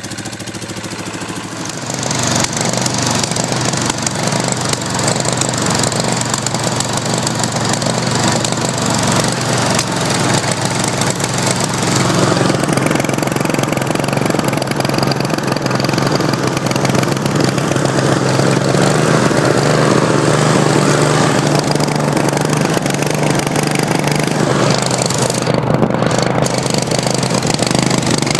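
Briggs & Stratton 20 hp OHV V-twin lawn-tractor engine running loud through a custom dual exhaust made from old lawnmower mufflers, as the tractor drives. It gets louder about two seconds in and then runs steadily.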